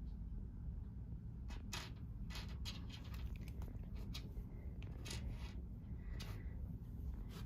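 Cats playing with toys: scattered light taps, clicks and rustles from about a second and a half in, over a steady low hum.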